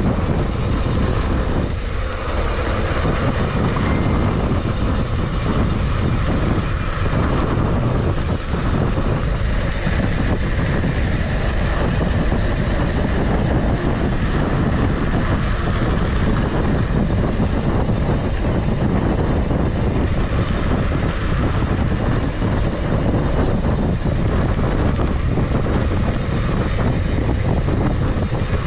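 Steady rush of wind on the microphone while riding a bicycle.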